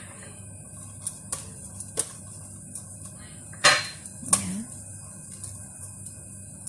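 Light clicks and taps, with a short, louder scraping rasp a little past the middle, as za'atar is spooned and sprinkled onto oiled pita bread. A steady low hum runs underneath.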